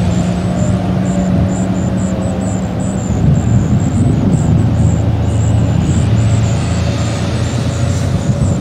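Steady vehicle engine and road noise, with a faint falling tone underneath: a Whelen 2016 rotating warning siren slowly winding down after its test.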